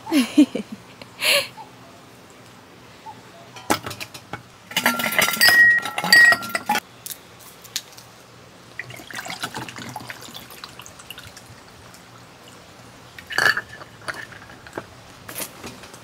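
Intermittent clinks and rattles of objects being handled, with a longer clattering stretch about five seconds in and a sharp clink near the end.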